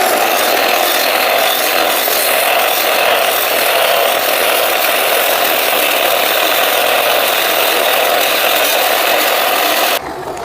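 A power tool working metal, a steady harsh noise that stops abruptly near the end.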